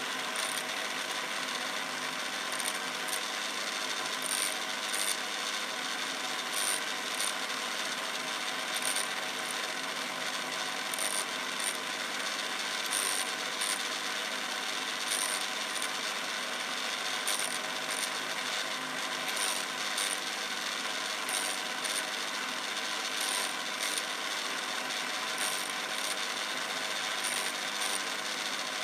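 Homemade Quorn tool and cutter grinder running, its disc wheel of about 80 grit grinding the front relief on a parting tool bit: a steady motor hum and grinding hiss, with short high hisses every second or two.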